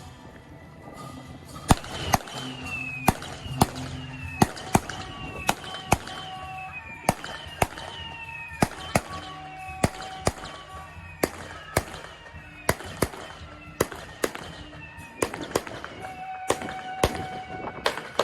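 Temple procession percussion band playing: sharp irregular strikes about twice a second, many followed by a ringing tone that falls in pitch, like a struck opera gong, over held reed-horn notes.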